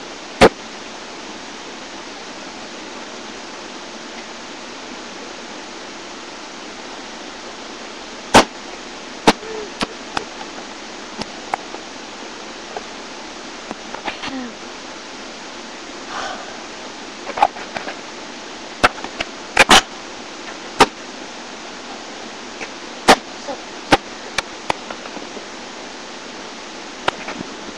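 A basketball hitting the backboard and rim and bouncing on the ground: about fifteen sharp knocks at uneven intervals, with a quick cluster a little before the middle, over a steady hiss.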